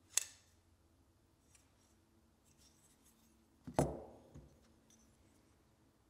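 Metal clicks from a Sencut Serene folding knife being worked by hand: one sharp click just after the start, faint small ticks, then a louder click with a dull thud about four seconds in, as the blade snaps into place.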